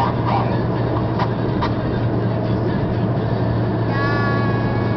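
Steady road and engine noise inside a car cruising at highway speed, with a constant low drone. About four seconds in, a held pitched tone sounds over it for about a second.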